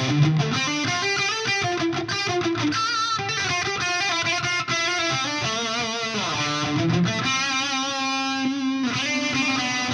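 Schecter C-6 Deluxe electric guitar playing a lead line of picked notes with vibrato, a slide down in pitch about six seconds in, and a long held note near the end.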